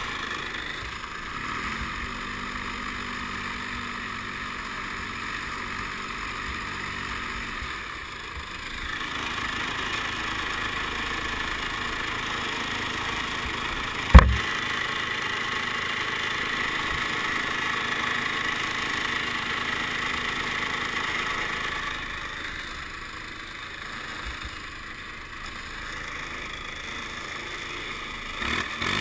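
Diesel garden tractor engine idling steadily, heard from the driver's seat, with one sharp, loud knock about halfway through.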